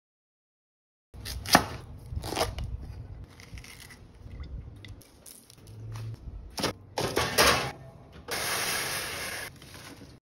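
Kitchen food-prep sounds starting about a second in: several sharp knocks and clatters with handling noise between them, then about a second of steady hiss near the end.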